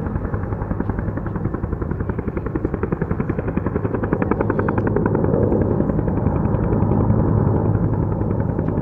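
Firefighting helicopter flying low, its rotor blades beating in a fast, even rhythm over a steady engine hum. It grows louder as it descends toward the camera.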